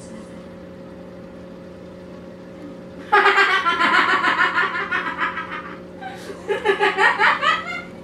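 A person laughing in two bouts, the first starting about three seconds in and a second shortly after, over a steady low hum.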